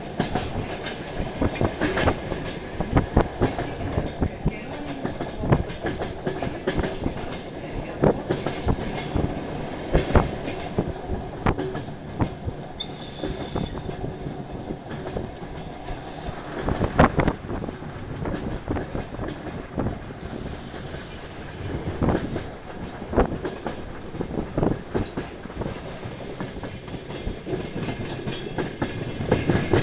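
DR1AMv diesel multiple unit running over station tracks and points, heard from inside the carriage: the wheels knock irregularly over rail joints under a steady rumble. Brief high-pitched wheel squeals come about 13 and 16 seconds in.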